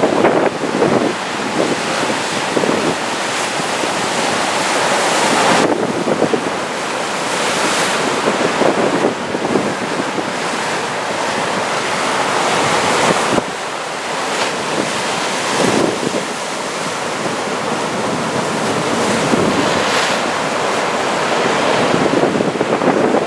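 Heavy ocean surf from a typhoon swell rushing and breaking, with wind buffeting the microphone. The sound changes abruptly twice, about 6 and 13 seconds in.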